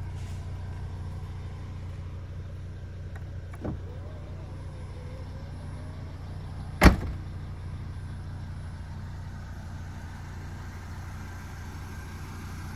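Volvo XC70's power tailgate closing: a faint whine for a couple of seconds, then one sharp thud as it latches shut about seven seconds in. Underneath, a steady low hum from the car's engine idling.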